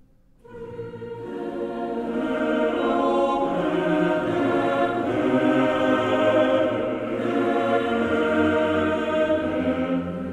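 Background choral music: held chords of many voices that begin about half a second in and swell over the next few seconds.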